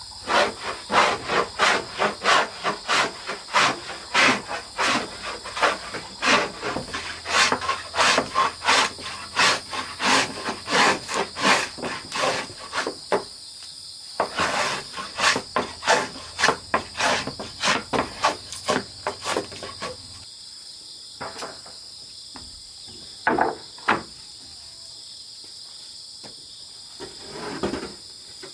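Wooden hand plane shaving a board in quick rasping strokes, about two a second, with a short break partway through; the planing stops about two-thirds of the way in, leaving a few scattered knocks. A steady high insect drone runs underneath.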